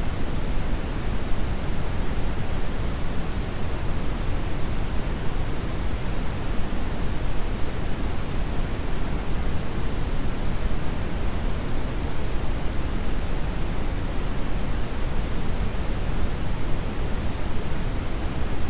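Brown noise: a steady, even rushing hiss weighted toward the low end, with no changes or events.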